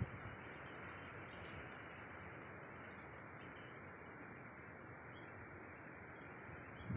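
Faint, steady background hiss with no distinct events, and a few faint short high chirps.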